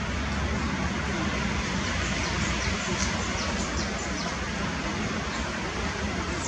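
Eurasian tree sparrows chirping: many short, high chirps that drop in pitch, scattered over a steady rushing noise with a low rumble.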